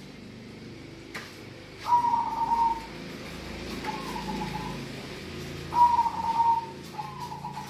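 Zebra dove (perkutut) cooing: two phrases of its song about four seconds apart, each a loud coo followed by a softer, slightly lower one.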